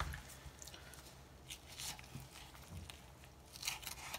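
A knife slicing raw chicken breast meat away from the breastbone: a few faint, short, wet squelching scrapes over a low steady hum.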